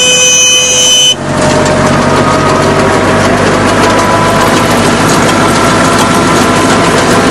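Tractor-driven mini round baler machinery running loudly. For about the first second there is a steady high whine, then a sudden cut to a dense, noisy machine run.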